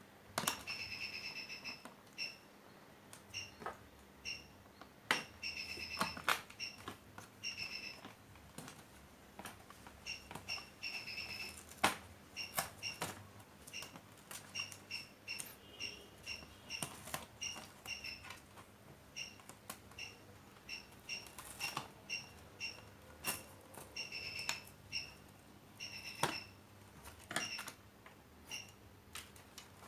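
Irregular small clicks and knocks of an LED TV's parts being handled and taken apart, with many short high squeaks in between.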